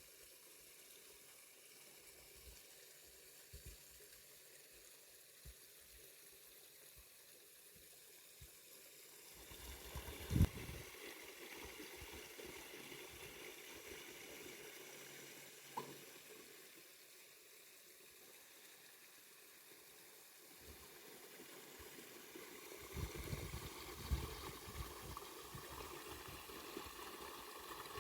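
Faint water sounds, splashing and trickling, over low rumbling. A sharp knock comes about ten seconds in and a small click near sixteen seconds.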